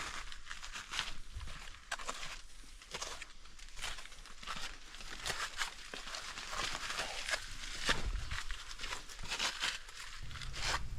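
Footsteps crunching on a dry forest trail: an uneven run of crisp steps and rustles.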